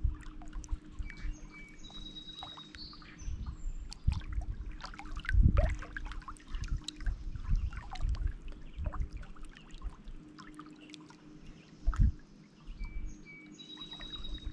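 Small waves lapping and splashing against shoreline rocks in irregular surges, with a songbird singing a short whistled phrase twice, once near the start and again near the end.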